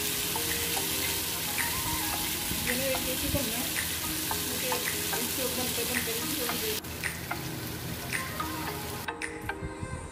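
Marinated beef steak sizzling on a hot ridged grill pan: a steady frying hiss that drops a little about seven seconds in and cuts off near the end.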